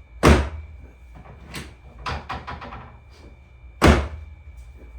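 Two loud thuds on a chiropractic treatment table, about three and a half seconds apart, as the sacrum is adjusted, with a single knock and a quick run of lighter clicks between them.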